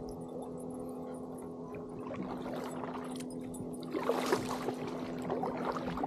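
Kayak paddle strokes: the blade dipping and pulling through the water with splashing and dripping, loudest about four seconds in. A steady low hum runs underneath.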